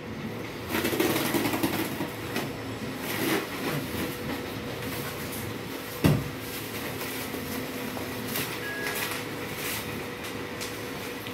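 Clear plastic wrap rustling and crinkling as it is pulled and folded over a glass table top on cardboard, with a single thump about six seconds in.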